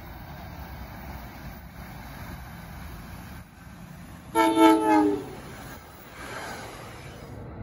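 NJ Transit Arrow III electric multiple-unit train sounding its horn in one blast about a second long, a chord of several tones that sags slightly in pitch as it ends. The rumble of the train passing follows.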